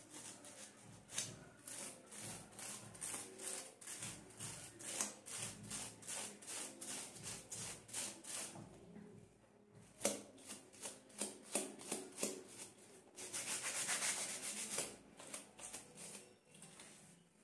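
Stiff-bristled scrub brush scrubbing a plastic comb in quick back-and-forth strokes, about three to four a second. The strokes pause briefly about halfway through, then run faster and almost continuous for a couple of seconds near the end.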